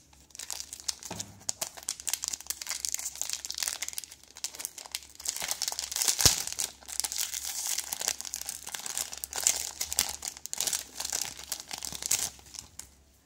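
Thin clear plastic bag crinkling and crackling continuously as it is handled and worked off a smartphone battery, with one sharp click about six seconds in.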